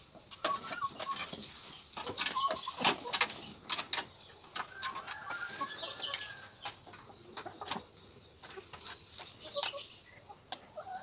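A flock of chickens moving about in a wire-mesh pen: scattered sharp clicks and scuffs, with a short call about halfway through and a faint steady high tone behind.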